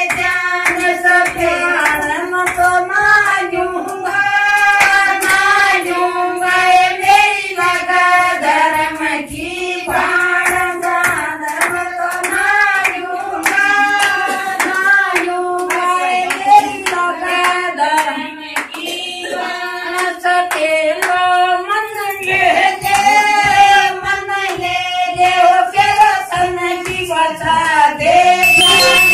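A group of women singing a folk song together, keeping time with rhythmic hand claps.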